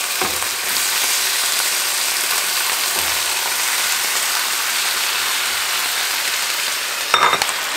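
Raw chicken pieces sizzling as they fry in a pot of sautéed garlic and onion, a steady hiss. A few sharp clicks near the end.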